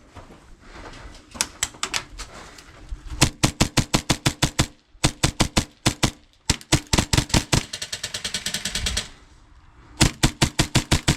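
HPA airsoft pistols firing in several rapid strings of sharp shots with short pauses between them, the fastest strings at close to full-auto rate.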